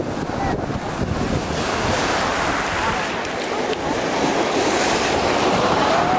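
Sea surf churning and washing through the shallows at the water's edge: a loud rushing wash that swells about a second and a half in, with wind buffeting the microphone.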